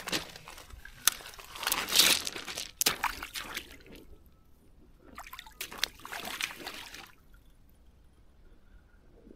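Wellington boots wading into shallow river water over gravel: sloshing, splashing steps in two bouts, stopping about seven seconds in.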